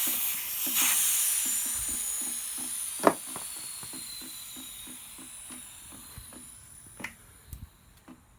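Air hissing out of a deflating tire, the hiss steadily dying away as the pressure drops, with a sharp click about three seconds in.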